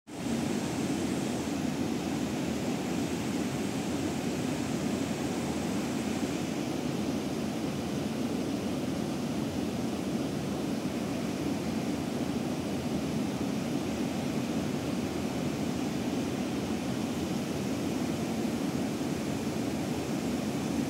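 Steady rush of river water pouring over a weir, an unbroken noise strongest in the low-middle range.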